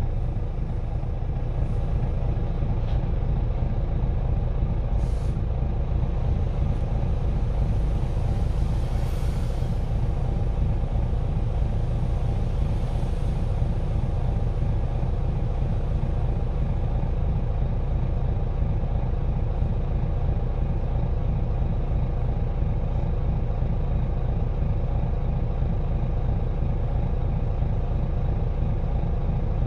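Diesel engine of First South Yorkshire bus 37351 running steadily, heard from inside the passenger saloon as a constant low rumble with a droning tone, and a faint hiss about ten seconds in.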